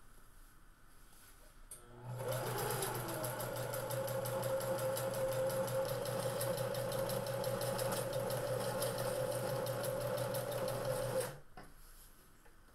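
Electric sewing machine stitching a long straight seam through cotton fabric. It starts about two seconds in and runs at a steady speed, with a motor whine and a fast, even needle clatter, then stops sharply about a second before the end.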